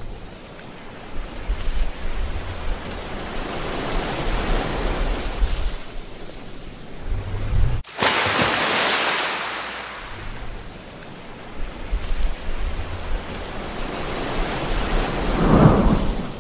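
Ocean surf rushing, swelling and fading. About eight seconds in the sound cuts out for an instant, then a loud wave crash rushes in for about two seconds.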